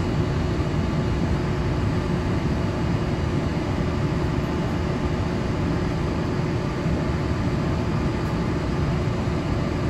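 Walt Disney World monorail heard from inside the cabin: a steady low rumble of the running train with a faint steady hum over it.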